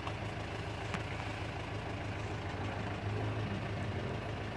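Vehicle engine running steadily, a low even hum over road-like noise, with one faint click about a second in.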